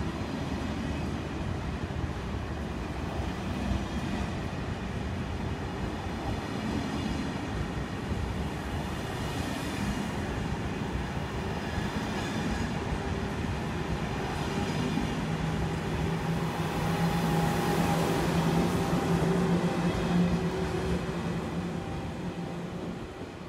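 Thalys high-speed train rolling along the platform: steady running noise of wheels and traction equipment with a low hum, growing louder about two-thirds of the way through, then dropping away near the end.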